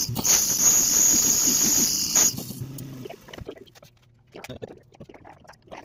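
Carbide-insert tool cutting a spinning aluminium workpiece on a lathe: a loud, high-pitched cutting noise for about two seconds that stops abruptly as the cut ends and the spindle winds down. Then come scattered light clicks and knocks as the part is handled.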